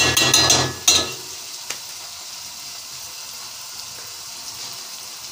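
Sliced onions frying in an aluminium pot: a metal ladle scrapes and clatters against the pot for about the first second, then a steady sizzle.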